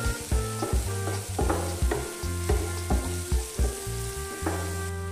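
Onion, tomato and ground-spice masala frying in mustard oil in a non-stick pan, sizzling as it is stirred, with spatula strokes about twice a second. Background music with held notes plays underneath.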